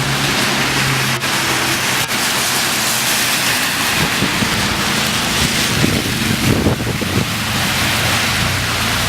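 Heavy rain and hail coming down hard, a steady hiss, with gusts of wind buffeting the microphone from about four to seven seconds in.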